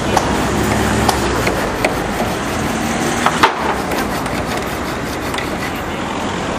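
Scattered sharp knocks and clanks as a wooden-framed wire-mesh fence is worked loose by hand, about five in the first three and a half seconds, the loudest a close pair near the middle. A steady hum of traffic runs underneath.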